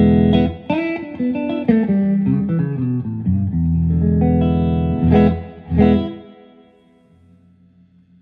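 Electric guitar, a Telecaster, played clean through a 1963 Standel 32J12T amplifier (germanium-transistor preamp, 7591 power tubes, 12-inch Jensen speaker). It plays a run of picked single notes and chords, with two hard-picked chords about five and six seconds in, then the last note rings out and fades away.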